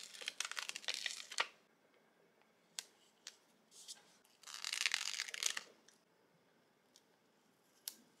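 Transparent decoration sticker being peeled off its backing sheet with a crinkly tearing sound, followed by a few light taps and a second, longer stretch of crackling about four and a half seconds in.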